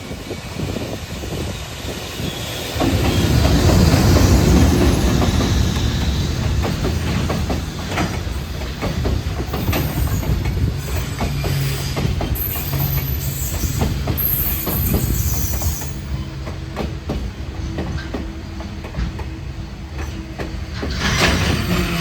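Freight train passing close by, its wheels clicking over the rail joints in a steady rhythm, loud from about three seconds in. Brief high wheel squeals come midway, and a steady low hum joins in from about halfway through.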